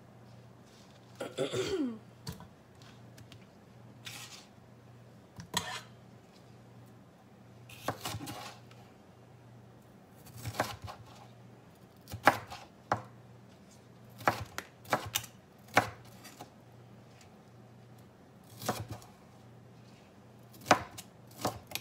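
Kitchen knife chopping a green bell pepper on a cutting board: irregular sharp knife strikes, sparse at first, then coming in quick runs of several chops in the second half.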